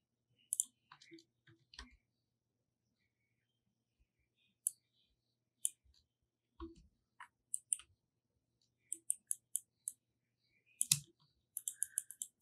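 Faint clicks of a computer mouse and keyboard: scattered single clicks in the first half, then quick runs of several clicks in the second half.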